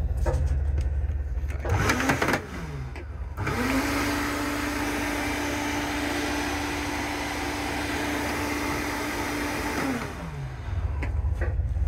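Wall-mounted hose hairdryer blowing: a short burst about two seconds in that dies away, then a steady rush of air over a constant motor hum for about six seconds, whose pitch falls as the motor winds down near the end.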